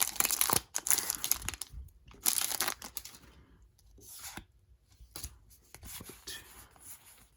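Foil wrapper of a Pokémon trading card booster pack crinkling and being torn open in several short rustling bursts, the first and longest in the first second and a half.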